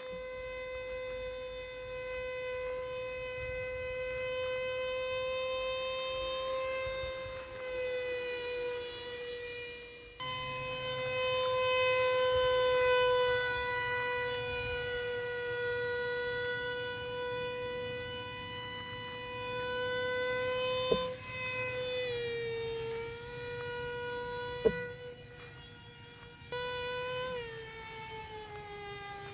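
Motor and propeller of a homemade RC boat plane running with a steady whine. The pitch wavers and dips in the last few seconds as the throttle changes, and two sharp clicks come near the end.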